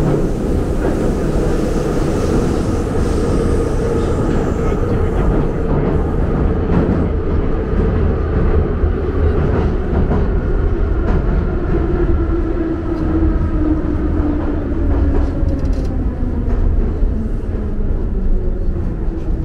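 Metro train running through a tunnel, heard from inside the carriage: a loud, steady rumble of wheels on rails with scattered clicks. The motor whine slides down in pitch over the second half as the train slows.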